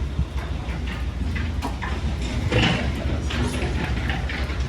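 Outdoor city street background noise: a steady low rumble with light, scattered taps.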